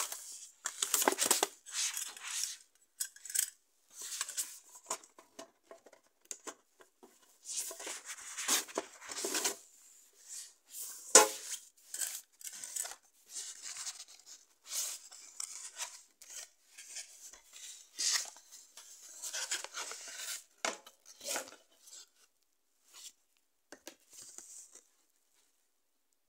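Hands handling DVD packaging: a cardboard slipcover and DVD case slide, rub and rustle in short, irregular bursts, with one sharp click about eleven seconds in.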